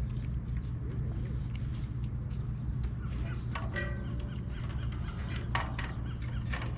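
Gulls calling, a few short calls in the second half, over a steady low hum.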